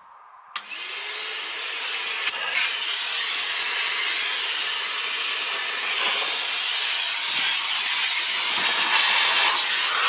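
Numatic Henry cylinder vacuum cleaner switched on about half a second in: its motor whine rises as it spins up, then it runs with a steady rushing of air.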